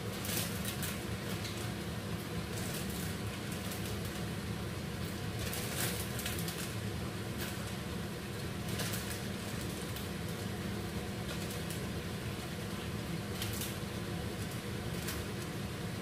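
Steady low hum of a kitchen appliance, with scattered light clicks, taps and rustles as gizzard is handled and added to a cooking pot.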